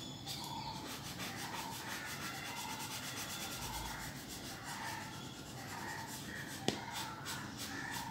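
Cotton bud rubbing graphite pencil shading on drawing paper to blend it: a faint, soft rubbing in short repeated strokes, with one sharp click about two-thirds through.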